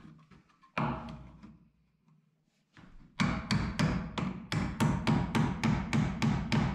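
Claw hammer nailing a blue plastic electrical box onto a wooden wall stud. A single knock about a second in, then from about three seconds in a steady run of hammer blows, about four a second.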